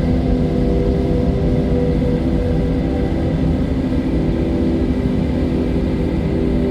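Ambient drone music: several low tones held steadily over a constant low rumble, without swells or breaks.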